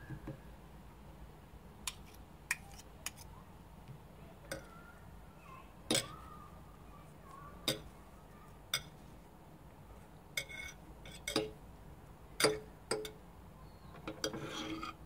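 Metal knife and fork clinking and scraping against a ceramic plate while rolling up and cutting a pancake: a dozen or so sharp, irregular clinks, with a longer scrape near the end.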